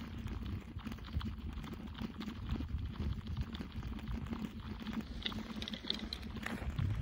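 Lake ice crackling and ticking in many small irregular clicks over a low rumble, with a few brief high tinkles about five seconds in, as the ice shifts at the edge of an opening lead.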